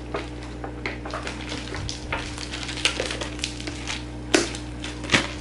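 Plastic shrink wrap crinkling and crackling as it is peeled and torn off a large instant-noodle bowl, with a couple of sharper clicks near the end.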